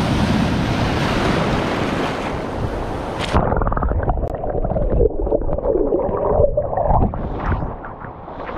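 Shore-break waves washing and churning in the shallows. About three seconds in the sound turns suddenly muffled, heard from under the water: dull gurgling and bubbling with rumbling surge, until the microphone comes back up near the end.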